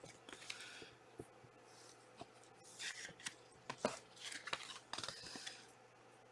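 Trading cards and their packaging being handled: several faint rustles and slides with light clicks and taps.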